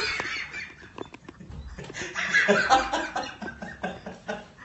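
A person laughing in short, rapid repeated bursts, loudest a little over two seconds in and tailing off toward the end.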